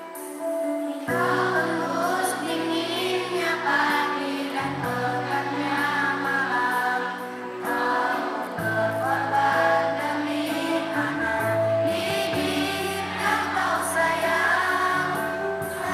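A group of children singing together with musical accompaniment of sustained low notes and chords; the accompaniment comes in about a second in.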